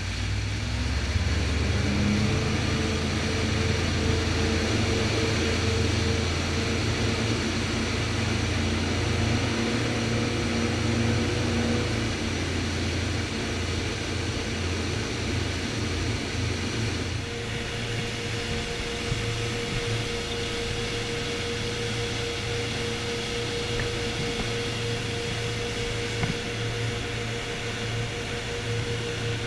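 A motorboat's engines run at steady cruising speed: a low drone with a steady whine on top, over rushing water and wind.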